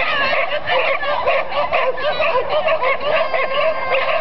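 Many flyball dogs barking and yipping at once, a continuous overlapping din of high, excited calls.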